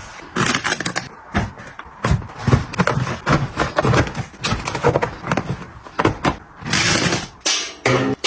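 Household items and packaging being handled during restocking: a quick, irregular run of knocks and taps from things being picked up and set down, with brief crinkling rustles of packaging.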